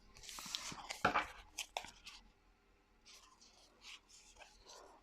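Tarot cards handled on a table: a soft rustle, then a few light taps and slides of card on card, faint.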